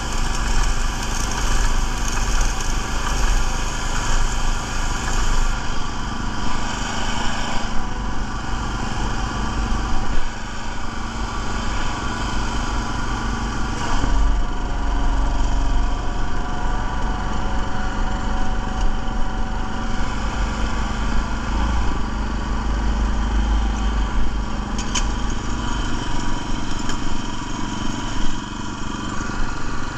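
Small gas engine of a walk-behind airless paint striper running steadily. For the first five seconds or so the spray gun hisses as it paints a curb, and the hiss then stops.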